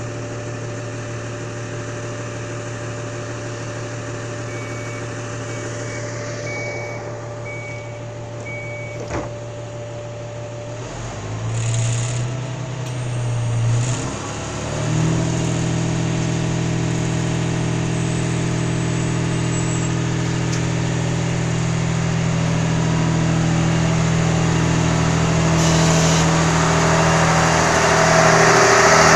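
Slovenian Railways class 713 diesel multiple unit's engine idling steadily, with a run of short high beeps in the first third. About halfway through, the engine revs up twice and then settles into a louder, higher running note that keeps building toward the end.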